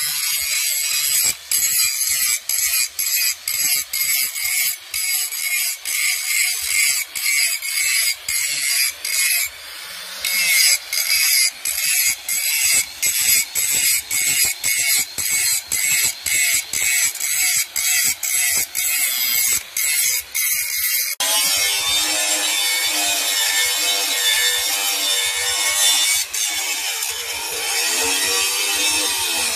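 Angle grinder grinding the edges of steel knife blades, the grinding broken by short gaps one to two times a second. About two-thirds through, the grinding runs on steadily.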